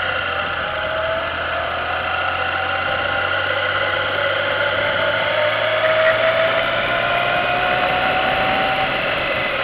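Motorcycle engine running under light throttle, its note rising slowly over several seconds and dropping back near the end, over a steady rush of wind and road noise.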